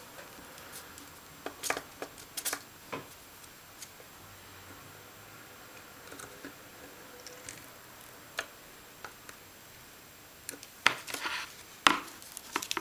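Light clicks and taps of small tools and electronic parts being handled on a work table during hand soldering. Near the end there is a louder cluster of clatters as the soldering iron is moved and set down by the pliers.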